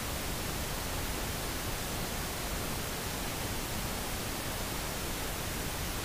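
Steady hiss of recording background noise, even and unchanging, with no other sound.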